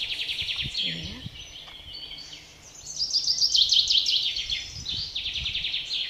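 Songbirds singing: several rapid trilled phrases of quickly repeated high notes. The loudest phrase comes about three seconds in and slides down in pitch.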